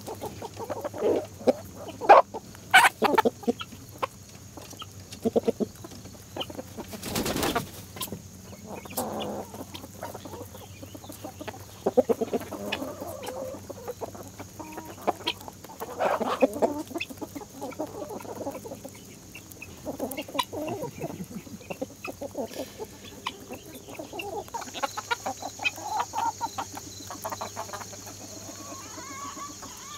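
A flock of chickens clucking and calling, with many short overlapping calls throughout. A brief noisy burst comes about seven seconds in.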